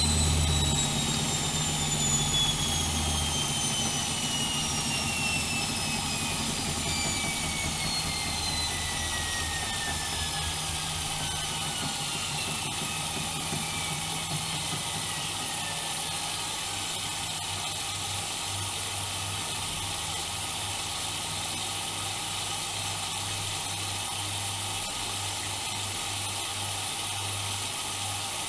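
Bauknecht WAK 5750 G washing machine's brushed motor and drum winding down from a fast spin, a whine falling steadily in pitch over about seventeen seconds, then a steady low hum and rumble as the drum turns slowly.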